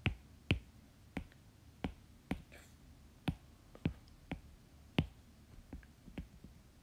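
Stylus tip tapping and writing on an iPad's glass screen: a series of light, sharp clicks, irregularly spaced at roughly two a second, as each handwritten stroke begins.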